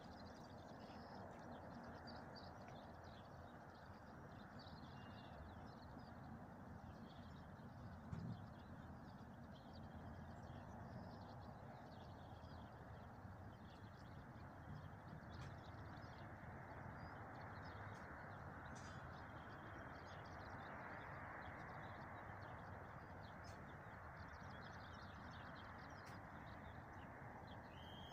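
Faint rural outdoor ambience close to silence: a steady low hiss with scattered chirps of small birds, and one soft knock about eight seconds in.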